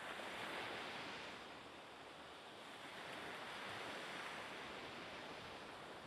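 Faint seashore ambience: a steady rushing hiss of small waves and wind along a calm tidal shore. It swells slightly about half a second in and again around four seconds.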